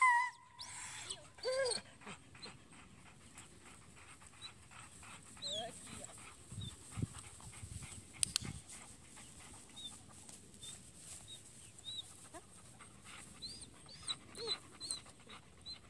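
Faint dog whines and panting, short high whimpers coming now and then.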